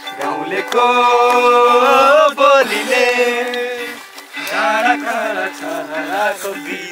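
Someone singing a Nepali song to an instrumental accompaniment, holding long notes that waver in pitch.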